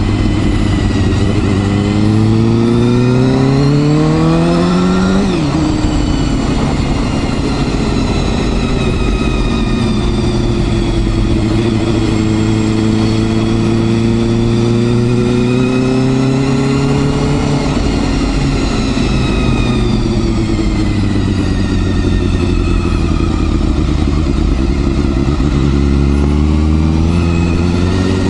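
Honda Hornet 250's inline-four engine under way: it revs up for about five seconds, drops sharply at a gear change, then runs on with its pitch slowly rising and falling as the speed changes, climbing again near the end.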